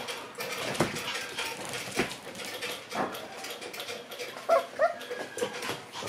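Shiba Inu puppies playing: scattered clicks and knocks of paws and claws on a hard floor, and two short high yips about four and a half seconds in.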